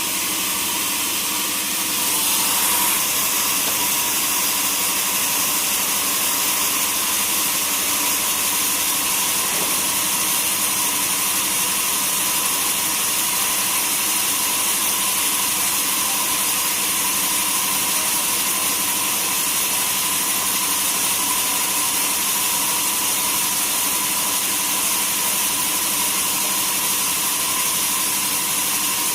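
Sawmill saw running steadily, a constant hiss with a faint steady whine, getting a little louder about two seconds in.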